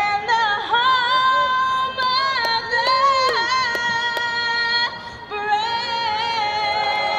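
A woman singing solo, holding long notes with vibrato, with a short breath about five seconds in: the closing lines of the national anthem before the game.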